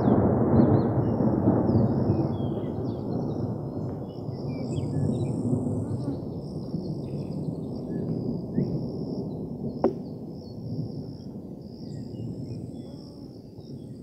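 Thunder rumbling, loudest at the start and slowly dying away, with birds chirping high above it. One sharp click about ten seconds in.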